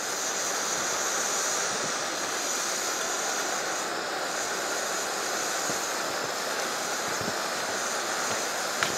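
Canister backpacking stove burner hissing steadily under a pot, with a small sharp click near the end.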